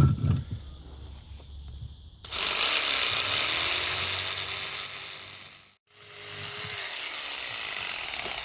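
Handheld electric power tool cutting or grinding into the work. It starts suddenly about two seconds in with a loud hiss, fades and cuts out almost to nothing near six seconds, then picks up again. The tool vibrates too much to trim with.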